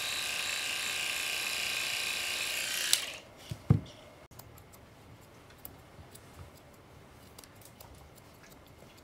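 Electric pet clippers running with a steady high buzz, switched off with a click about three seconds in. A low thump follows, then scattered light clicks.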